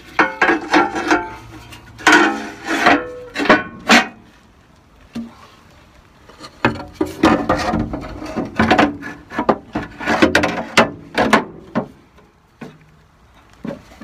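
Handling noise: a run of knocks, scrapes and rubbing as the camera is moved against a steel plate and a flannel shirt sleeve. It comes in two busy stretches, the first few seconds and again after a short quiet spell.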